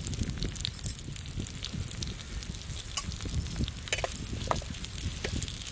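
Sliced onions and slit green chillies sizzling in oil in a metal kadai, with a metal spoon clicking and scraping against the pan as they are stirred in the latter part.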